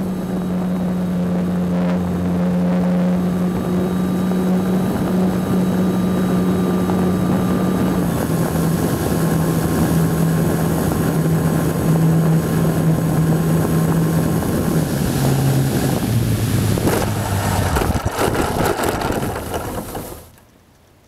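Brushless electric motor and propeller of a GWS Slow Stick RC plane, heard through its onboard camera with wind rushing over the microphone. The steady buzzing drone steps down in pitch several times as the throttle comes back for landing, then stops. A rough rustling and scraping follows as the plane touches down in the grass, and the sound cuts off suddenly near the end.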